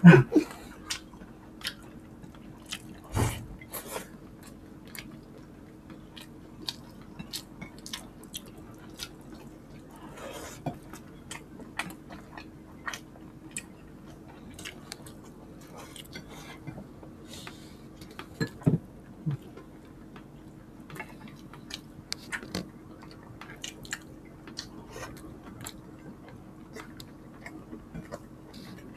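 Close-miked chewing and mouth sounds of people eating creamy chicken pastel and rice by hand: many short wet clicks and smacks, with a heavier thump about three seconds in. A faint steady hum runs underneath.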